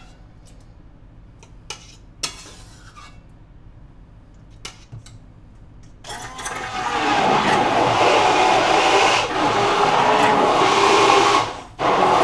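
A few light clicks and knocks, then about halfway through a handheld immersion blender starts up and runs steadily, puréeing tomato sauce in a tall jug. It cuts out briefly just before the end and starts again.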